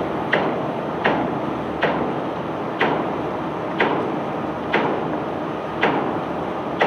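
Unloading gear of a self-unloading barge discharging cobblestones: a steady rushing clatter with a sharp clack about once a second.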